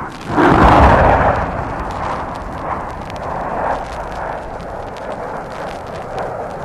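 Large military explosion: a sudden loud blast about half a second in, followed by a long rumble that stays loud with little fading.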